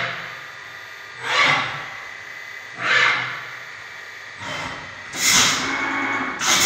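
FANUC Robodrill T21iD vertical machining centre running through its cycle: short hissing mechanical bursts about every second and a half. The longest and loudest burst comes about five seconds in, as the 21-tool changer carousel turns.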